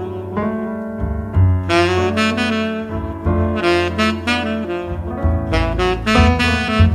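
Jazz background music playing as the ending theme: a melodic lead line over a low bass line.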